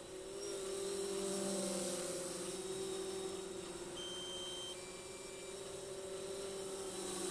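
DJI Phantom 3 Standard quadcopter's propellers in flight: a steady pitched hum that grows louder about a second in and eases off, as the drone comes nearer and moves away. A couple of short high beeps sound about four to five seconds in.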